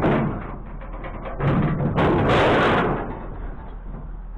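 Scrap being handled and dropped on a pile: a sharp knock at the start, then a longer rattling clatter about a second and a half in.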